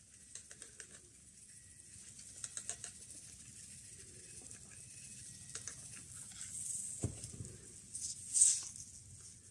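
Faint scattered ticking and pattering as a Greenkeeper electrostatic grass applicator is shaken over a sisal-cord model bush, flocking it with static grass fibres. Near the end a short, louder rustle as gloved fingers handle the flocked bush.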